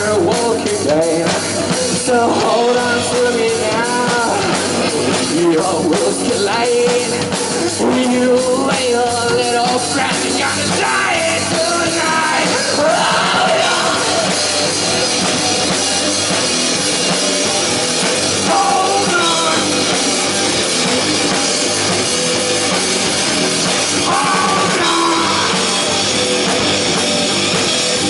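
Live rock band playing: electric guitars and a drum kit with a man singing lead into a microphone, the vocal most prominent in the first half, cymbals washing over the second half.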